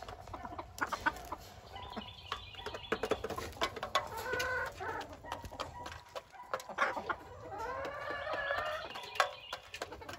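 Bengal fowl, grey junglefowl x domestic chicken crosses, clucking. Two longer arching calls come a few seconds in and again about eight seconds in, over a scatter of short sharp clicks.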